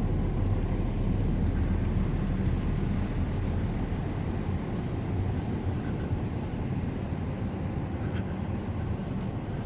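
Fire engine's diesel engine idling: a steady low rumble that grows slowly fainter.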